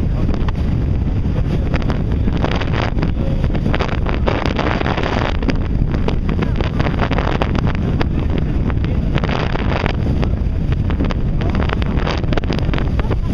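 Wind buffeting the microphone on an open ferry deck, loud and steady with gusty flutters, over the low running noise of the ferry.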